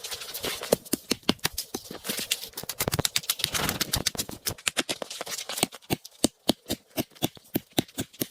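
A rapid series of sharp taps or clicks, irregular at first, then more even at about five a second in the second half.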